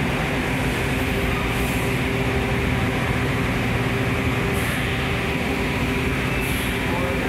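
Washington Metro (WMATA) subway train in an underground station: a steady hum and rumble, with three short high hisses.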